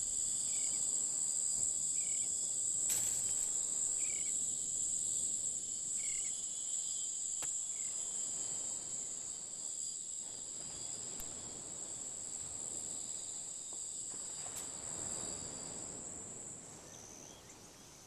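Insects trilling in one steady, high-pitched drone, with a few faint short chirps in the first half. The sound slowly fades and shifts in pitch shortly before the end.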